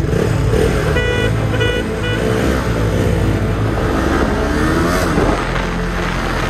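Yamaha R15 V3's 155 cc single-cylinder engine revving hard as the bike accelerates from a standstill, its pitch rising through first gear and rising again after a shift into second, with wind noise growing as speed builds. Three short high beeps sound about a second in.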